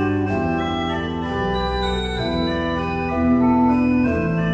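Background music of slow, sustained chords that change about once a second, with no speech.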